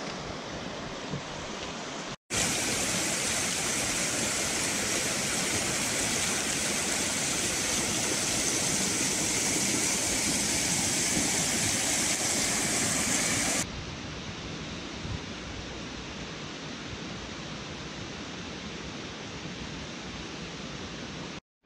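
A rocky mountain stream rushing steadily. The rush is louder from about two seconds in until about two-thirds of the way through, then drops back to a quieter rush. It breaks off briefly twice.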